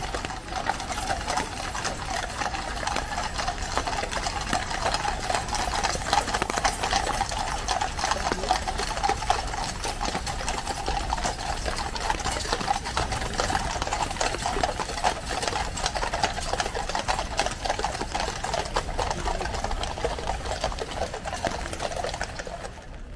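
Clip-clop of many shod horse hooves on a wet road as a mounted troop passes: a dense, steady clatter that drops away near the end.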